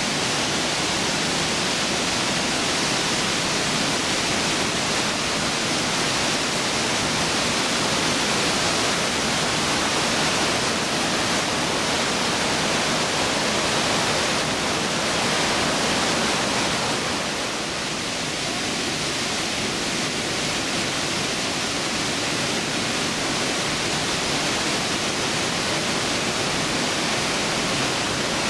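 Glacier-fed waterfall rushing through a narrow rock gorge inside the mountain: a steady, loud rush of falling water.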